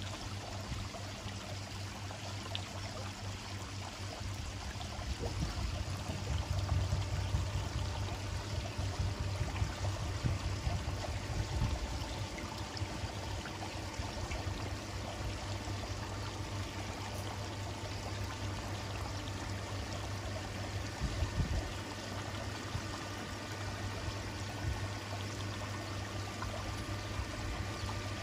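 Steady rush of water from the koi pond's waterfalls, with a low hum underneath.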